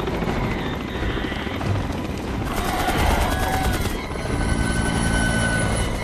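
Helicopter rotor chopping as it lifts off, over a dense rumble, in a film soundtrack mix. A few steady high tones join about four seconds in.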